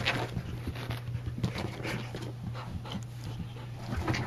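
Dogs panting and scuffling as they play-wrestle, a run of irregular breaths and soft rustles.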